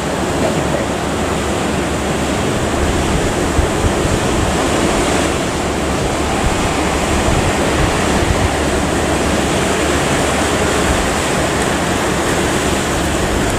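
Strong wind buffeting the microphone over the steady rush of waves against a moving ship, a dense unbroken roar without pauses.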